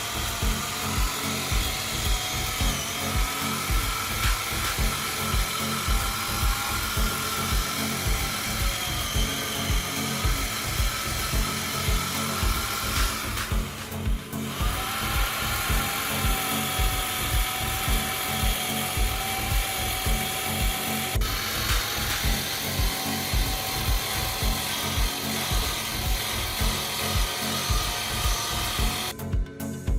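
A power tool running steadily on wood, with a slightly wavering whine, over background music with a steady beat. Both break off briefly about halfway through, then carry on.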